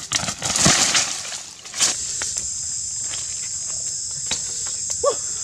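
Rustling and crunching of footsteps pushing through dry leaf litter and brush, then after a cut a steady high insect buzz with a few sharp knocks of wooden branches being laid down.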